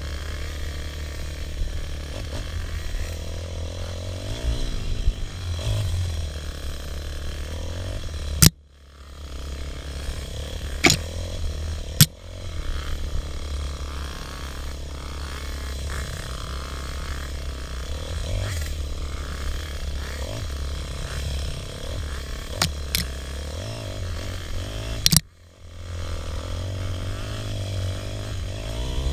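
Dirt bike engine heard from an onboard camera while riding a rough bush trail, its revs rising and falling under a heavy low rumble. A few sharp knocks, and the sound drops out briefly twice.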